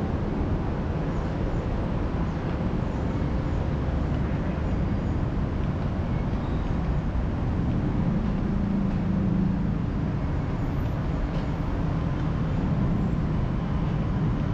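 Steady, continuous low rumble of a moving vehicle, with no distinct events standing out.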